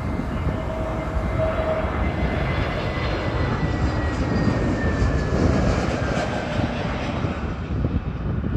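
TAP Air Portugal twin-engine jet airliner passing low overhead on its landing approach: steady engine noise with a thin whine that slowly falls in pitch as it goes by, loudest about halfway through.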